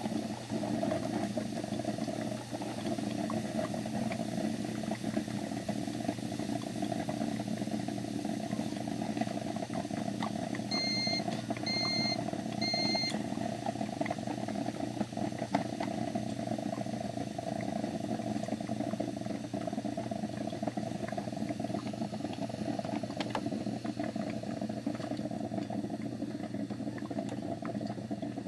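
Broken, leaking coffee machine running with a steady bubbling, gurgling drone. Three short high beeps about a second apart sound about a third of the way in.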